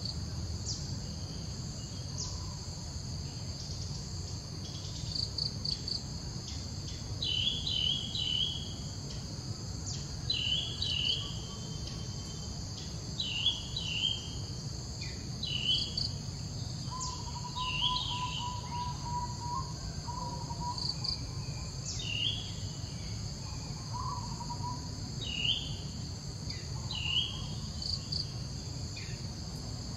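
Steady high-pitched insect chorus, like crickets, with a bird repeating a short call every two to three seconds, and a low steady rumble underneath.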